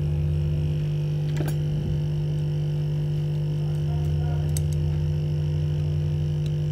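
Steady low electrical hum from the repair-bench equipment, with a couple of faint small clicks.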